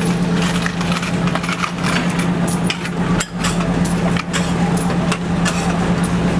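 City street traffic: a vehicle engine hums steadily under scattered short clicks and knocks.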